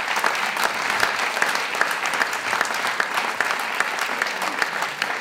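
Audience applauding, an even patter of many hands clapping.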